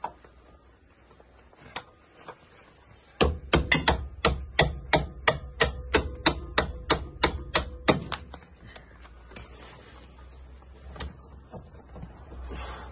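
Hammer blows on a seized bolt in a classic Fiat 500's front suspension, driving it out from the other side. A quick run of sharp metal strikes, about three or four a second, starts about three seconds in and lasts some five seconds. A few scattered lighter knocks follow.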